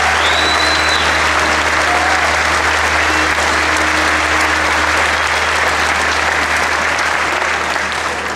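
Audience applauding steadily: dense, even clapping from a crowded auditorium, beginning to thin out at the very end.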